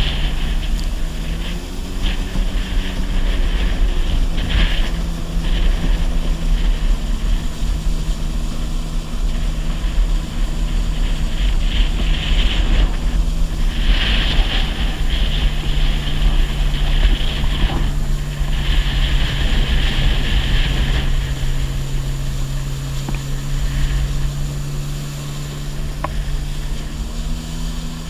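Personal watercraft engine running steadily at cruising speed. Its pitch steps up slightly about a second in and again near the end. Wind buffets the microphone, and water spray hisses at times.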